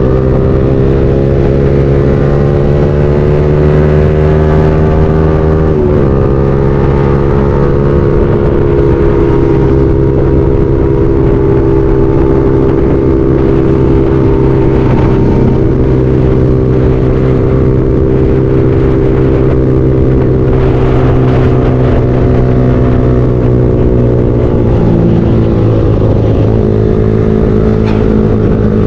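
Motorcycle engine running under steady throttle on the road, heard from the rider's camera. The pitch dips briefly and recovers about six seconds in and again near the end, as with a gear change or a throttle lift.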